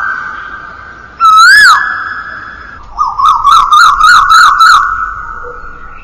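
Asian koel (koyal) call used as a ringtone: a loud whistled note that rises and falls, then a quick run of about six rising notes. Each call trails off in a long echo.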